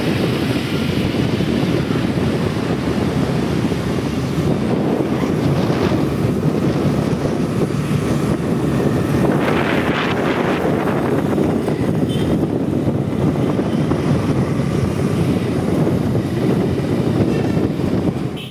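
Wind buffeting the microphone of a phone held up on a moving motorbike, over the steady rumble of the ride and street traffic, with a brief louder hiss about ten seconds in.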